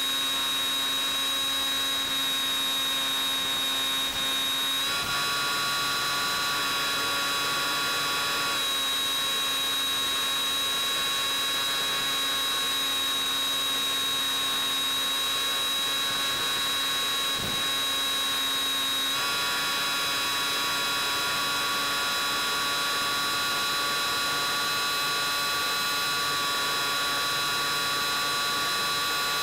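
Steady electric whine and hum from the Bix3 FPV plane's motor and electronics in flight. Several tones hold steady, then jump in pitch suddenly a few times.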